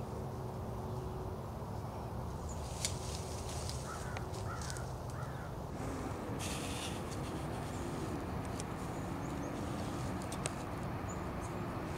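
Outdoor ambience: a steady low rumble, with scattered faint clicks and three short bird calls about four to five seconds in.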